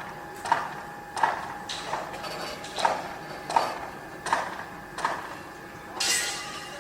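Construction-site noise: a run of evenly spaced sharp knocks, about one and a half a second, over a faint steady hum. A longer hissing burst comes near the end.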